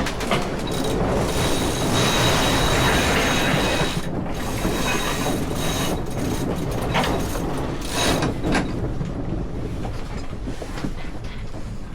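Sailing yacht's sheet winch being cranked in after a tack, its ratchet pawls clicking, over a steady rush of wind and water.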